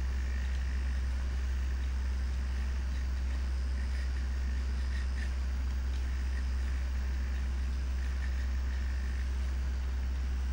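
A steady low hum, with faint motor whirring and a few light ticks from the self-balancing robot as its wheel motors hold its balance and its servos turn its camera head.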